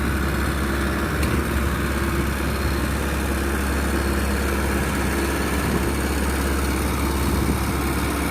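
Maxxi Bimo 102L rice combine harvester running, its engine and machinery giving a steady, even drone with a strong low hum.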